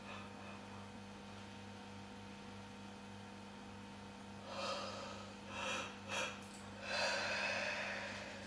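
A woman yawning audibly to a puppy in a contagious-yawn test: a few short breathy gasps about halfway through, then a longer yawning breath near the end, over a faint steady electrical hum.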